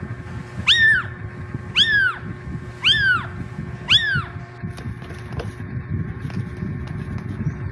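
A cat meowing four times, about once a second, in short, high-pitched calls that rise and fall. The calls stop about halfway through, over a steady low background noise.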